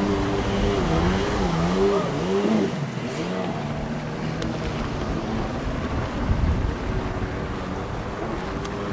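Engine of a fast powerboat or personal watercraft running at speed across the water, its pitch swinging up and down. It fades about three seconds in and comes back near the end, over a steady rush of wind and water.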